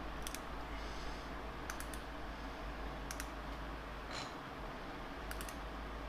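8 mm metric hand tap being turned in a T-handle tap wrench, cutting threads in a mill table: small sharp clicks in twos and threes every second or so over a steady low hum.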